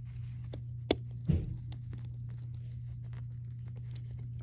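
Plastic Lego pieces being handled and pressed together, with a sharp click about a second in and a duller knock just after, then small light clicks. A steady low hum runs underneath.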